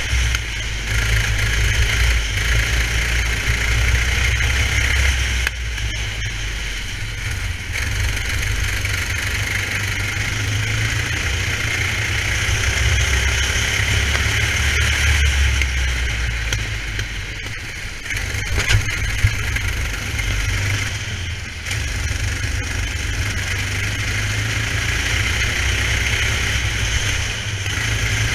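Racing kart engine running hard at speed, heard from on board the kart, easing off briefly a few times, as for corners, and picking up again.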